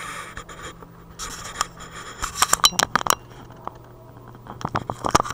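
Clicks and scrapes of a clear plastic coin capsule holding a silver medal being handled and stood up on a table, in two quick clusters: one about two to three seconds in, and another near the end.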